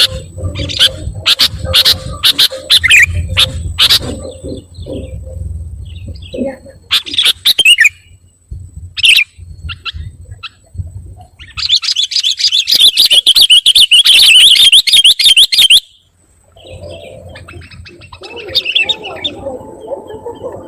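Sooty-headed bulbul (kutilang) calling noisily: a run of sharp, quick chirps, then scattered chirps, then a loud unbroken chattering spell of about four seconds past the middle. Lower, busier bird sounds follow near the end.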